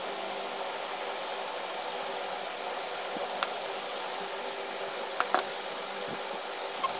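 Steady fan-like hiss with a faint underlying hum, and a few light clicks in the second half.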